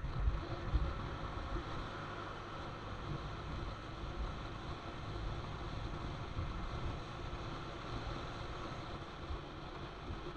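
Steady wind and road rumble on a camera riding on a moving motorcycle, a little louder in the first second.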